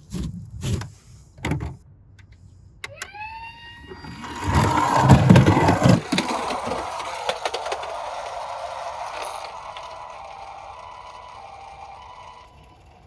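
Toy minicars on a slope: a few knocks, then a whir that rises in pitch and settles, a loud rattling roll, and a steady whir that slowly fades out.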